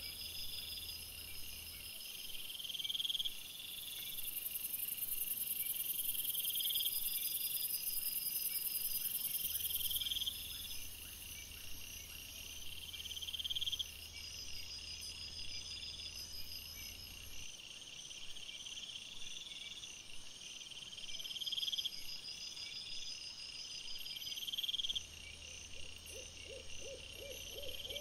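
Night-time woodland sounds picked up by a trail camera's microphone: a short, high call repeating every couple of seconds over a thin, steady high trill. A low electrical hum from the camera cuts out about two seconds in and comes back and drops out again several times.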